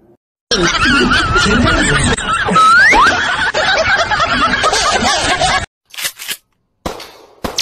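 Giggling laughter with a quick rising glide about three seconds in. It stops abruptly near six seconds, followed by a few short sounds and a falling sweep at the end.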